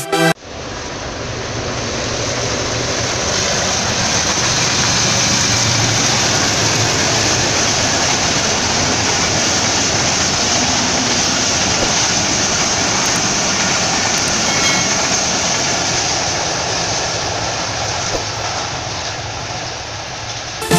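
Pakistan Railways Awam Express passenger train rolling past, a steady rush of wheel-on-rail noise from its coaches. The noise builds over the first few seconds and slowly fades near the end as the train draws away.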